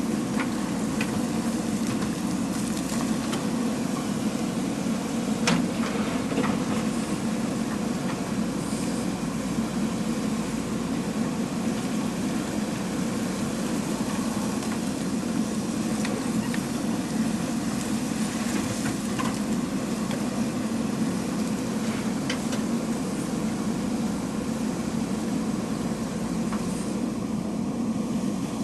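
JCB 3DX backhoe loader's diesel engine running steadily while the machine works, with a few short sharp knocks, around five to seven seconds in and again near twenty seconds.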